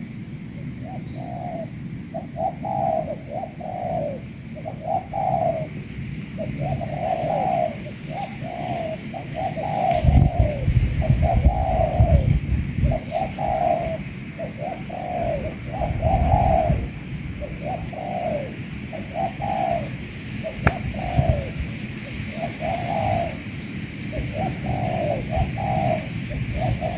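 Spotted doves (tekukur) cooing: short cooing phrases one after another with hardly a break. Bursts of low rumble come in about ten seconds in and again a few seconds later.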